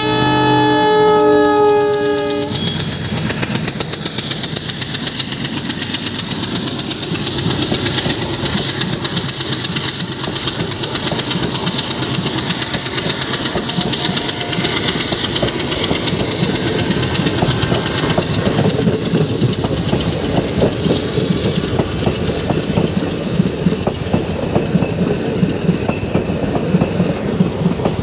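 WDM3D diesel locomotive's horn sounding, stopping about two and a half seconds in. Then its Alco diesel engine chugs as it passes under acceleration, followed by the coaches' wheels clattering over the rail joints in a steady clickety-clack that grows more rhythmic in the second half.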